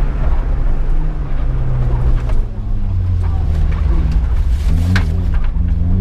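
Opel Corsa C GSi rally car's four-cylinder engine running under way, its revs falling about a second in and again around the middle, then held lower and steady. A few short sharp ticks are heard.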